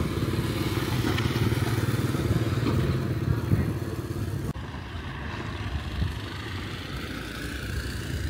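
Small motorcycle engine running close by with a fast, even pulse. It drops suddenly in level about halfway through and carries on quieter.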